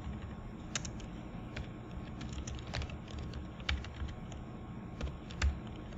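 Typing on a computer keyboard: scattered, irregular keystrokes as a short line of text is entered.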